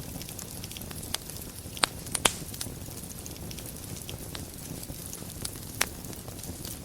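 Wood fire burning in a fireplace: a steady low rumble and hiss, with crackles and a few sharp pops, the loudest two close together about two seconds in and another near the end.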